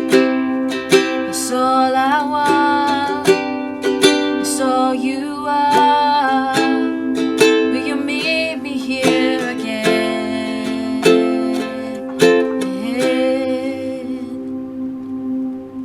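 Instrumental passage of a worship song: a plucked string instrument strummed in a steady rhythm over a sustained chord, getting quieter and softer near the end.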